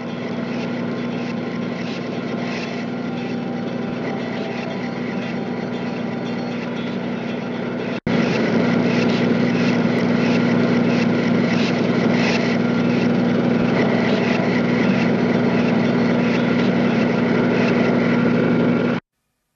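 Steady motor noise from an underwater net-cleaning rig at work: a constant low hum with a whirring above it. It jumps louder about eight seconds in and stops abruptly near the end.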